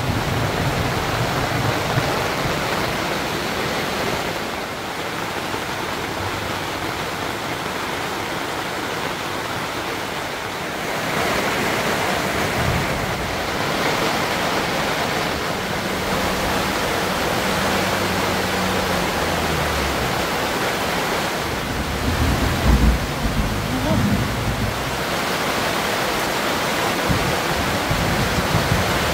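Heavy rain pouring down steadily, heard from inside a tent: an even rushing hiss of rain on the tent fabric and the grass outside.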